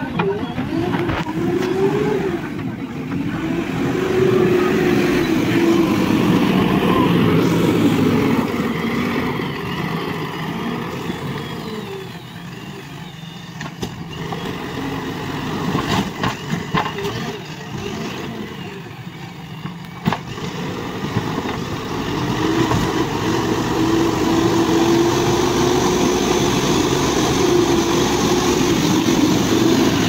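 JCB backhoe loader's diesel engine running hard and revving up and down as the machine digs and pushes earth. It eases off for a stretch in the middle, where a few sharp knocks stand out.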